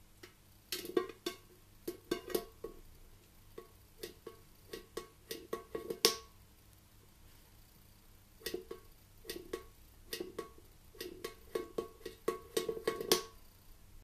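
African grey parrot's beak tapping and knocking inside a small metal watering can: irregular clusters of sharp clicks, each with a short ringing from the can, the loudest knock about six seconds in.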